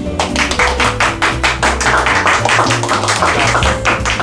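Background music with a quick, steady percussive beat over a bass line.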